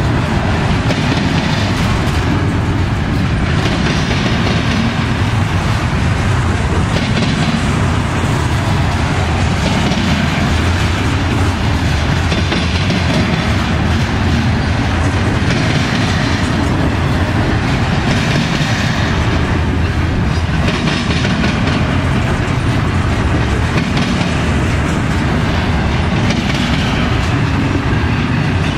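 Norfolk Southern double-stack intermodal freight train's container well cars rolling past close by: a steady, loud rumble of steel wheels on rail.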